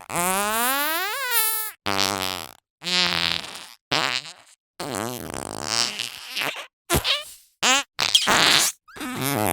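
A rapid string of cartoon fart sound effects: about nine separate farts of different lengths and pitches with short gaps between. The first is a long one that rises in pitch.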